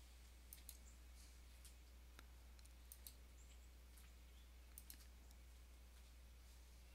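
Near silence with a steady low hum and a few faint computer mouse clicks, several in quick pairs, as swatch colours are picked.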